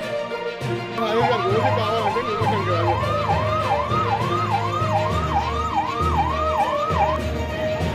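A siren sweeping up and down in pitch about twice a second, starting about a second in and stopping shortly before the end, over background music with a steady bass line.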